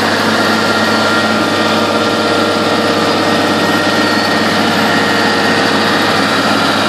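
Self-propelled ZM2 harvester lifting a first-year crop: its engine and lifting machinery running steadily, with a steady hum and a couple of high, even whines over the clatter.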